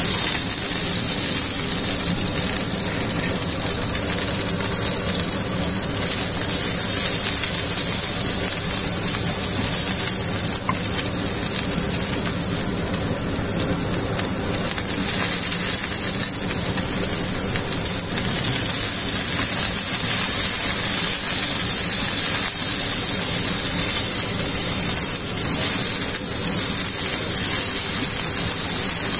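Green chillies and curry leaves sizzling in hot oil in a frying pan, a steady loud hiss.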